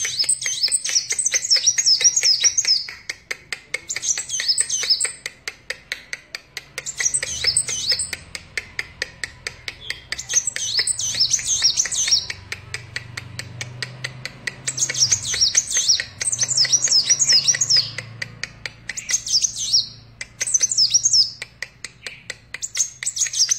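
A sunbird of the kind called kolibri wulung singing in full voice: phrases of fast, high twittering chirps a few seconds long, repeated after short pauses, with sharp ticks about three a second in between.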